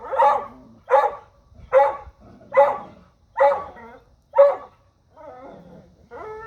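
A dog barking at a deer: six loud barks about one every 0.8 seconds, then quieter, longer pitched calls near the end.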